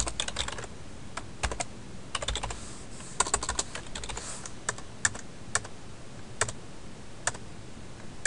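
Computer keyboard typing in short bursts of keystrokes, then single sharp clicks roughly once a second.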